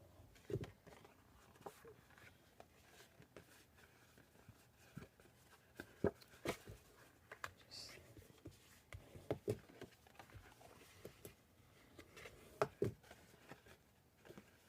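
Cardstock being folded and creased by hand against a tabletop: scattered soft taps and paper rustles, with a brief papery swish about eight seconds in.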